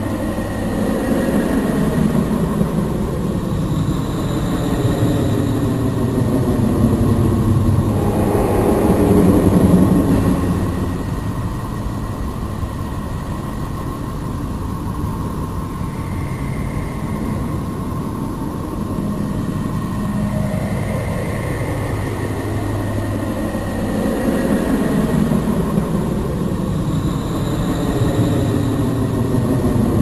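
Space sonification of Neptune: the planet's radio emissions, recorded by a spacecraft and converted into sound. A continuous low rumbling drone with slow sweeping tones that rise and fall over it, swelling loudest about a third of the way in and again near the end, with a faint steady high tone.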